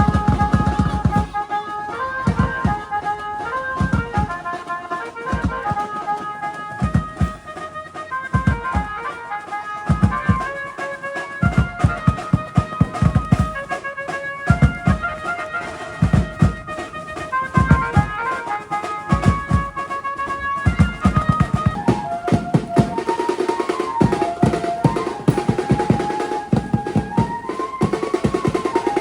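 Garba dance music: a melody line over a steady, driving drum beat.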